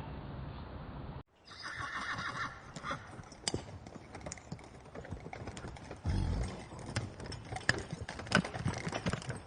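A horse whinnies once about a second and a half in, then its hooves clip-clop in an uneven run of knocks, with a low thump about six seconds in.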